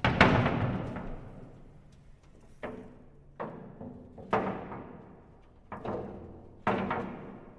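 Heavy iron doors slamming, six clangs at uneven gaps of about one to one and a half seconds, each ringing and dying away.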